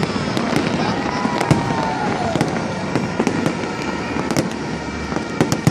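Fireworks display: a continuous, rapid string of bangs and crackles, with a gliding whistle that rises and falls about a second in.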